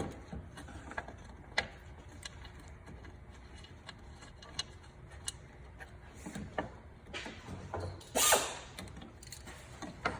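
Ratchet wrench clicking as the 10 mm bolts of a truck hood latch are driven in, amid scattered clicks of metal parts being handled. A louder scraping rush comes about eight seconds in.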